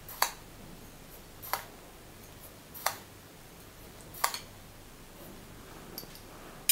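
Metal teaspoon clinking against a glass bowl while sugar is scooped out: four sharp clinks evenly spaced a little over a second apart, then a couple of faint ticks near the end.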